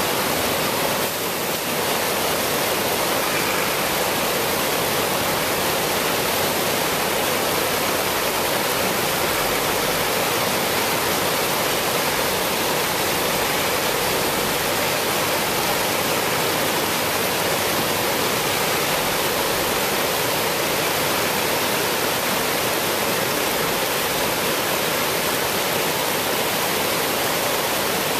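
River water rushing over the rocks and ledges of a shallow weir: a steady, even roar of white water.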